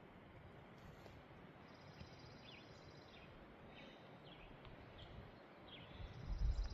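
Faint bird chirps, short falling notes repeated every half second or so, over a quiet background hiss; near the end a few low thumps.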